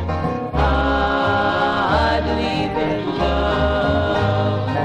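Bluegrass band music from a 1979 vinyl record: acoustic string band with banjo, guitar, dobro, fiddle and upright bass playing over a steady bass line, with long held notes.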